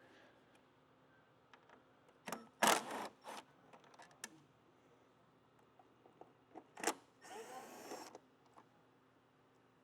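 Tool noise from removing the motorcycle fairing's wind deflector bolts: two brief bursts of whirring, about two seconds in and again near seven seconds, with scattered light clicks of tool on metal between them.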